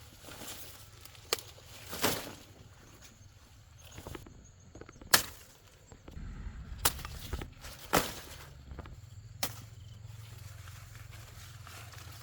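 A handful of sharp knocks or snaps at irregular intervals, about six in all, over a faint low hum. The loudest comes about five seconds in.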